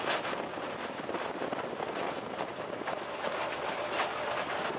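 Ride noise in the open back of a moving tuk-tuk: a dense, continuous rattling clatter of the metal rear bed and railings over the road, with a few sharper knocks near the start and about four seconds in.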